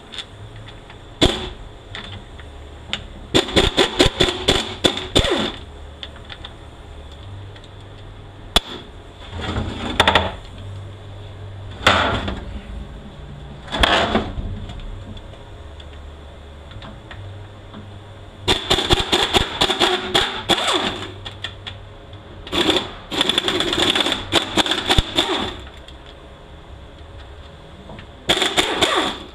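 Pneumatic air ratchet rattling in repeated short bursts, some two to three seconds long, as it spins out the tail-housing bolts of an automatic transmission.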